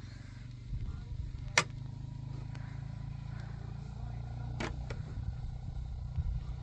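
Metal spoon clinking sharply twice against the pot and plate while cooked rice is scooped out, once about a second and a half in and again about three seconds later, over a steady low rumble.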